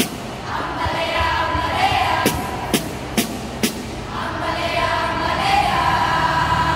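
A group of young voices chanting in unison as part of a choral speaking performance, holding long pitched notes together. Sharp percussive hits punctuate it: one at the start and four in a steady beat about half a second apart, two to four seconds in.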